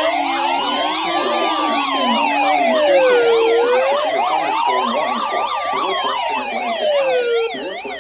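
Layered electronic sirens: a slow wail rising and falling about every four seconds over a rapid yelp. The wail stops about seven and a half seconds in while the yelp carries on.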